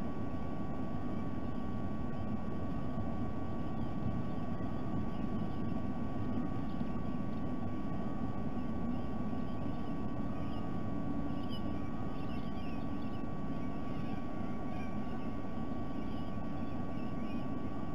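Steady low background rumble with a constant thin electrical hum-tone running under it, and a few faint high chirps from small birds about two-thirds of the way in.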